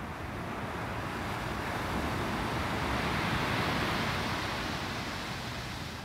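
Small ocean waves breaking and washing up a sandy beach, the surf hiss swelling to a peak about halfway through and easing off near the end.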